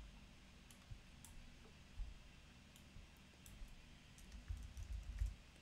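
Faint computer mouse clicks and keyboard key taps, with a quick run of keystrokes near the end.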